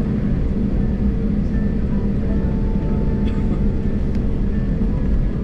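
Steady cabin noise of an Airbus A320neo taxiing, heard inside the cabin over the wing: the CFM LEAP-1A engines at taxi power give a constant low rumble with a steady drone running through it.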